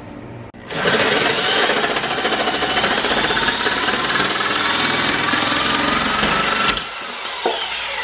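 Corded DeWalt reciprocating saw cutting a freezer-organizer rail to length. It starts about a second in, runs loud and steady for about six seconds with its whine creeping slightly up in pitch, then stops abruptly.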